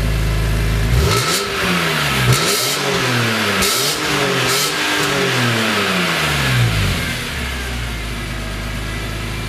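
BMW E46 M3's S54 inline-six idling through its exhaust, then blipped up and down about six times in quick succession, settling back to a steady idle about seven seconds in.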